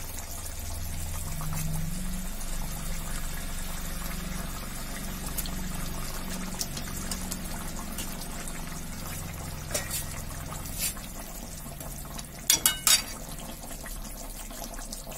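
Fish curry bubbling steadily as it boils in a kadai. A metal spatula knocks against the pan a few times, most sharply in a quick cluster near the end.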